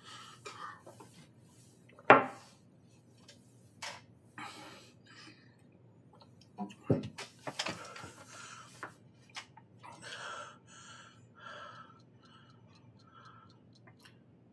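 Sparse knocks and clinks of objects on a table: a sharp knock about two seconds in and a duller thump near seven seconds, with scattered small clicks. Faint breathy vocal sounds come between them.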